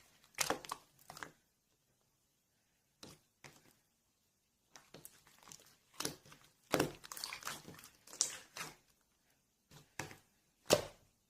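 Crinkling and crunching handling noises in short, irregular bursts, with a quiet gap early on and one sharp, loudest crackle near the end.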